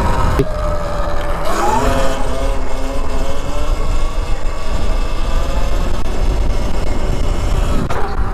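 Small motorcycle engine running, revving up about two seconds in and then holding a steady pitch, over heavy low wind rumble.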